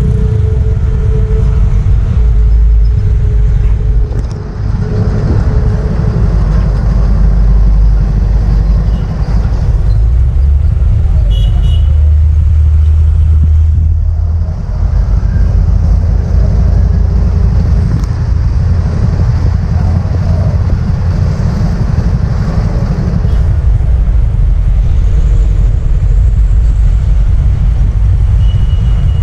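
Road traffic passing, a loud, steady low rumble of cars and motorbikes, with a horn-like tone fading out in the first second.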